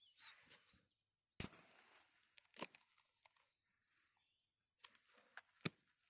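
Faint rustling of dry pine-needle litter, with a few sharp snaps and clicks, as hands pick porcini mushrooms from the forest floor.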